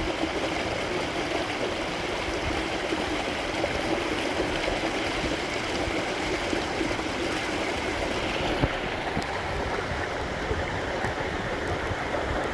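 Waterfall rushing: an even, unbroken hiss of falling and splashing water.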